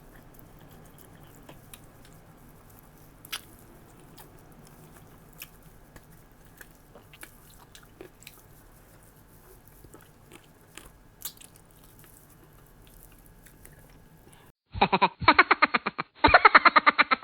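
Close-miked chewing and biting, with faint wet mouth clicks and crunches of someone eating. Near the end comes a much louder pitched sound that pulses rapidly for about two and a half seconds, with one short break.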